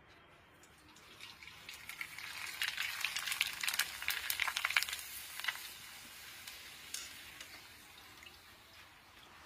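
Papad deep-frying in hot oil in a kadai: a crackling sizzle that swells about two seconds in, stays loudest for a few seconds, then dies down to a faint fizz.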